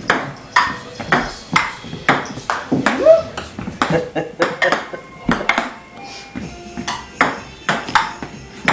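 Ping-pong ball clicking against paddles and the table in a rally, about two hits a second, with a break of a second or so past the middle before play resumes.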